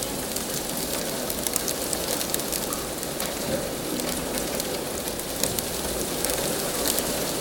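Torrential rain pouring down in a steady rush, with many sharp drop impacts pattering through it.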